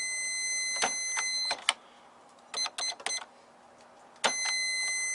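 Electronic cash register giving a steady high-pitched beep with key clicks. The beep breaks off after about a second and a half, a few short beeps follow, and the steady beep starts again about four seconds in.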